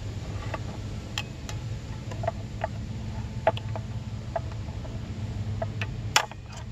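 Sharp metal clicks and ticks of a screwdriver prying at the return springs of motorcycle drum brake shoes, a dozen or so scattered at irregular intervals, the loudest about six seconds in. A steady low hum runs underneath.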